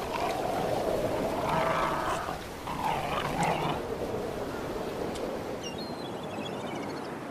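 Black-backed jackals growling over a seal pup kill, in several short pitched outbursts through the first four seconds, over the steady wash of surf. After that only the surf remains, with a few faint high chirps near the end.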